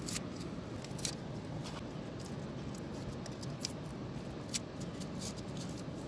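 Dry onion skin crackling and snapping as it is peeled and cut away with a small knife: a handful of sharp, crisp clicks at irregular intervals over a steady low background noise.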